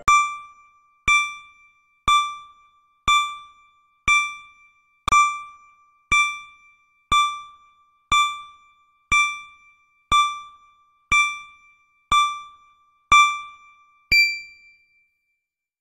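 Countdown timer sound effect: a bright electronic ding once a second, fifteen in all, each fading quickly. The last ding rings a little longer than the others.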